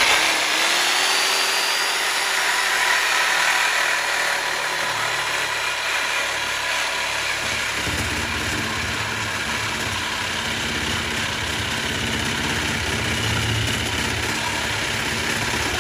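BMW E92 328i's inline-six engine running steadily through a catless exhaust, with a deeper engine note coming in about halfway through.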